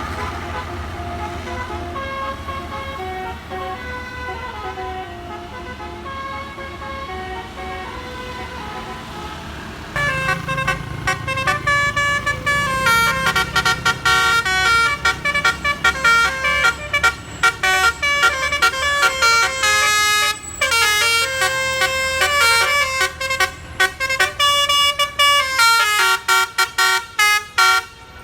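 Bus 'telolet basuri' multi-tone air horn playing a tune of stepped notes. It is fainter for about the first ten seconds, then much louder, with quick choppy notes starting and stopping, over the low sound of a bus engine running.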